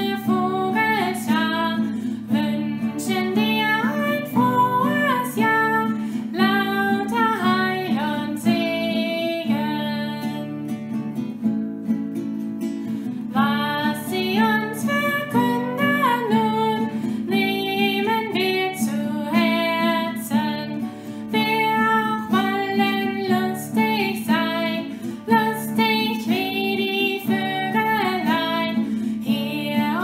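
A woman singing a German children's song, accompanying herself on a strummed acoustic guitar. About a third of the way in the voice stops for a few seconds while the guitar plays on, then the singing resumes.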